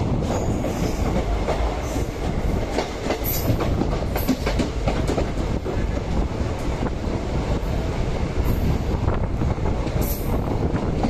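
Passenger train running, heard from an open coach window: a steady rumble of wheels on rail with frequent clicks and clatter as they run over rail joints and yard points, and a few brief high-pitched wheel squeals.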